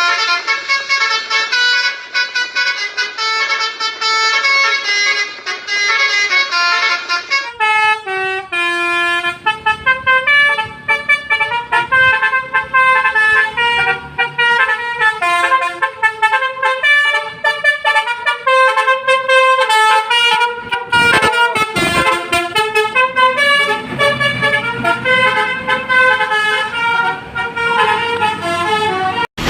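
Bus telolet horns, multi-tone musical air horns, playing quick melodic tunes note after note. The tune and recording change abruptly about seven seconds in.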